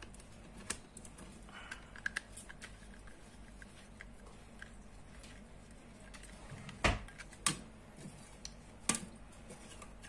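Small scattered clicks and taps of a screwdriver working a terminal screw on a plastic two-way wall switch, with a few louder knocks later on as the switches are handled.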